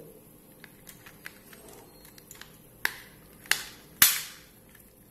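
Transparent plastic Raspberry Pi case being pressed shut by hand: a few light clicks, then three sharp snaps within about a second and a half, the last the loudest, as the case halves lock together.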